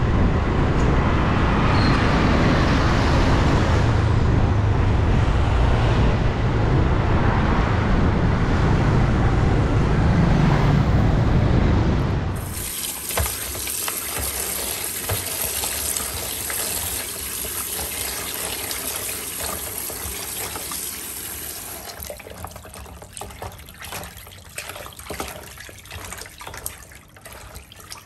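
Wind rushing over the microphone of a moving motorbike, with road noise. About twelve seconds in it cuts off suddenly. After that, water runs and splashes as hands wash pieces of raw meat in a basin of water at a sink, and the splashing grows fainter toward the end.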